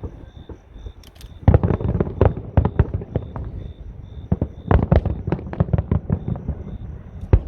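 Fireworks going off: a rapid, irregular series of sharp bangs that starts about a second and a half in, comes thickest around the middle, and ends with one strong bang.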